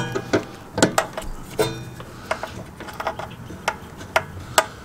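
Sharp metallic clicks and taps, irregular, about one every half second to a second, from hands and fittings working the gas line connection onto an RV water heater's gas valve.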